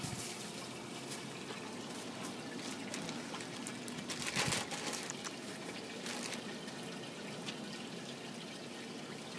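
Steady trickling of water, with a brief louder noise about four seconds in.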